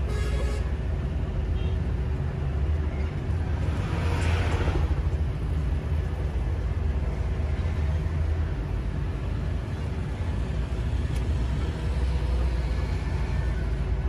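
Engine and road noise inside a moving vehicle's cabin: a steady low rumble, with a brief louder rush of noise about four seconds in.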